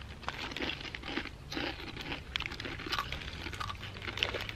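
Irregular crinkling and crunching: a run of short crackles with no steady rhythm.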